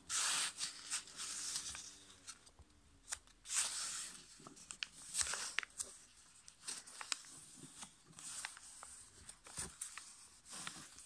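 Yellow A5 copy paper being folded and pressed into creases by hand on a tabletop: irregular rustles and crinkles with sharp little clicks as the fingers run along the folds.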